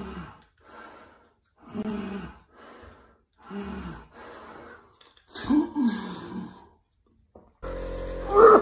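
A man's voice in short, separate voiced bursts about once a second, with no clear words. Near the end it cuts to the steady hum of a nebulizer's compressor, with one loud voiced sound over it.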